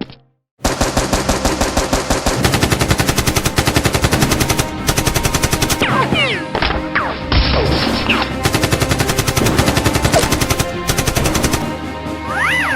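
Rapid automatic gunfire sound effects, shot after shot at about ten a second, starting after a short moment of silence. A few brief sliding whines cut through partway in and near the end.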